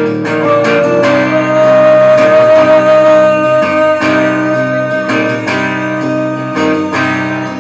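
Acoustic guitar strummed hard in the closing bars of a folk song, with one high note held over the first four seconds or so.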